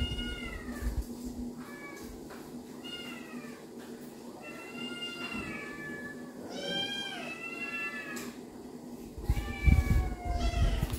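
Young tabby cats meowing again and again, about six high-pitched meows. A low rumble comes in near the end.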